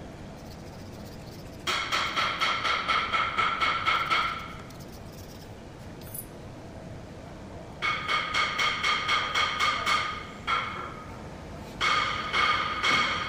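Hand scraper worked in quick back-and-forth strokes over the metal sealing face of a screw air compressor's oil separator tank, squealing in three bursts, cleaning off old gasket residue before the new separator element goes in.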